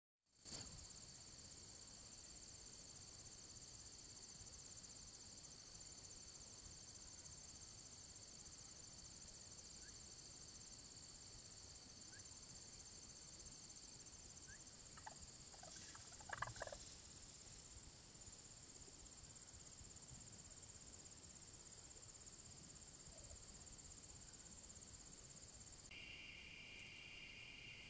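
Faint, steady high-pitched chorus of insects such as crickets, with a brief flurry of short, louder sounds a little past halfway. Near the end it switches to a lower-pitched insect chorus.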